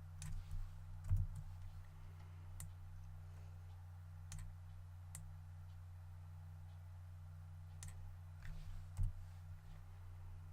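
Scattered, irregular single clicks of a computer mouse and keyboard being used at a desk, over a steady low hum.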